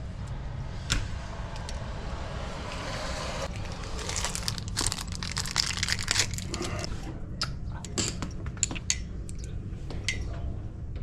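Crinkling and rustling of material being handled, with many sharp small clicks, densest from about four to seven seconds in and then thinning to scattered clicks.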